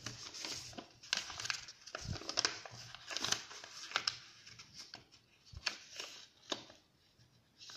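Sheet of origami paper being folded and creased by hand: irregular rustling and crinkling with short crackles as the fingers press the folds flat, growing sparser toward the end.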